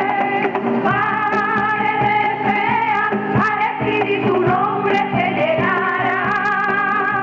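A women's folk choir sings together with vibrato, backed by strummed guitar and a steady beat of sharp percussion clicks, including a cajón.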